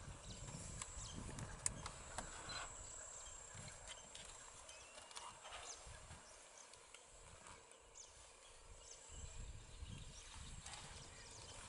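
Faint outdoor ambience: a low rumble that fades in the middle and returns near the end, over a thin steady high tone, with scattered small clicks and a couple of brief chirps.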